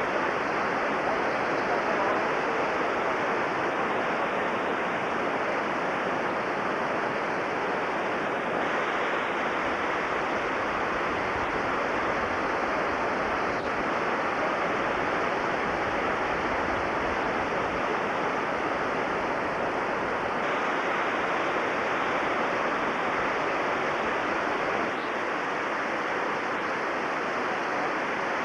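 Whitewater rapids rushing steadily: a continuous, even noise of churning water that holds at the same level throughout.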